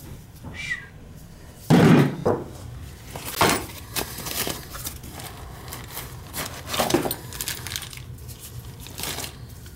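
Metal parts of a boiler gas valve and its pipe fittings being handled, with a series of knocks and clatters, the loudest about two seconds in.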